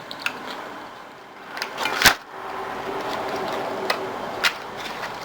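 Food containers and leftovers being handled: one sharp click about two seconds in, then a steady rustling noise with a few lighter clicks.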